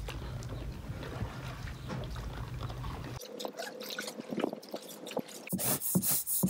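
Water trickling and dripping from oars as a small dinghy is rowed, over a steady low rumble that stops abruptly about three seconds in. Near the end, quick, regular scrubbing strokes of a brush begin.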